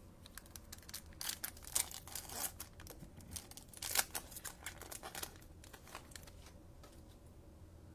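Foil wrappers of 2020 Panini Mosaic football card packs being torn open and crinkled by hand. A dense run of quick crackles and rips lasts about five seconds, then thins out to a few faint rustles near the end.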